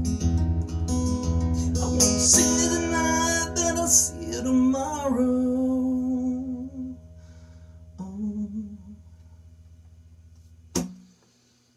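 Acoustic guitar strummed, then a chord left ringing and fading under a man's long held, wordless sung notes that waver near the end of the phrase; a softer note follows, then a single sharp knock near the end.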